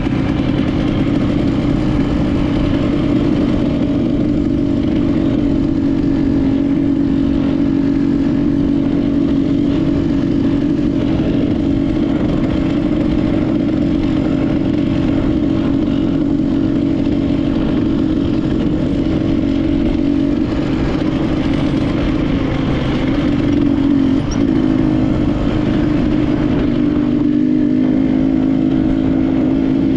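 Enduro dirt bike engine running steadily under throttle while riding a trail, with a brief dip in revs partway through.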